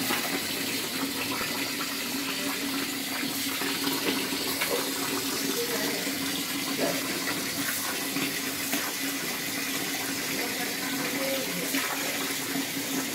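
Tap water running steadily into a large clay basin while hands stir and wash the contents, with a steady low hum underneath.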